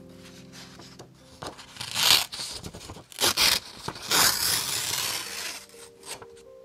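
A thin printed paper page torn by hand in three rips, about two, three and four seconds in, the last one lasting about a second.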